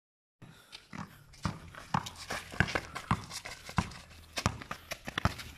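Basketball dribbled on a concrete court, sharp bounces coming irregularly about every half second, with shuffling footsteps between them.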